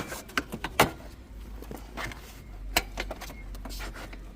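Quick clicks and knocks of a part being slid back into place and fitted in the Camry's engine bay, busiest in the first second, with one more knock near three seconds. A low steady rumble sets in after about a second.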